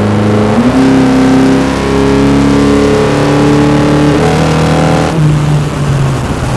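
A 2022 Honda Civic Sport's 2.0-litre four-cylinder engine accelerating through an aftermarket AEM short ram intake. Its pitch rises sharply about half a second in and holds, then steps down twice in the second half as the throttle eases off.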